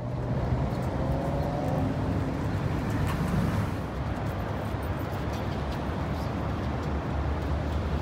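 Steady road traffic noise with a low engine rumble.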